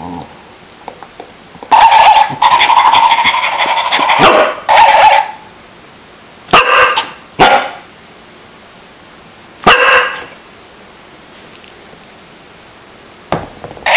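Barking dog toy giving out recorded dog barks through its small built-in speaker: one long run of barking lasting about three seconds, then three short barks a few seconds apart.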